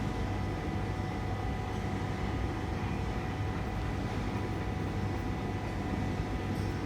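Power drill fitted with an 8 mm granite drill bit running steadily: a low hum with several steady whining tones over a rough grinding noise.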